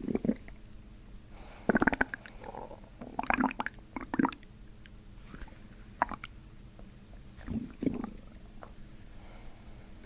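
Stomach and intestinal gurgling from a person's abdomen being pressed on during visceral manipulation: a string of short gurgles at irregular gaps of a second or two, the kind of release of trapped gas and fluid in the gut that is sought in this work.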